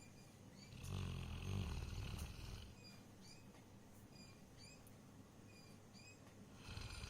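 Labrador retriever snoring in its sleep: one long, low, rasping snore about a second in, lasting about two seconds, and the next snore starting near the end.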